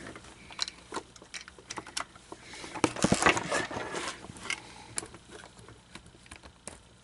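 Small plastic gears and parts of an animatronic's head mechanism being handled. Scattered light clicks and taps, with a busier patch of clicking and rustling about three seconds in.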